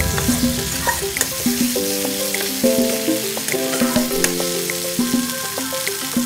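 Ground chilli-and-shallot spice paste sizzling in hot oil in a wok while a spatula stirs it, with scattered sharp scrapes and taps of the spatula on the pan. Soft background music with sustained notes plays throughout.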